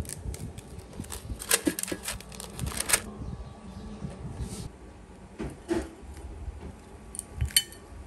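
Kitchen handling sounds: a parchment paper liner rustling and crinkling in an air fryer basket as fish are laid in, a dense run of rustles and clicks in the first three seconds, then scattered clicks and a sharp click near the end.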